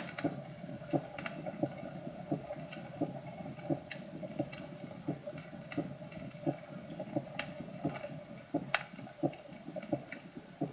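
Recorded heart sounds as heard through a stethoscope: a diastolic gallop rhythm, soft thumps repeating fast and evenly, with three sounds to each beat, over a steady hum. In active rheumatic fever such a gallop is a warning sign of a strained heart.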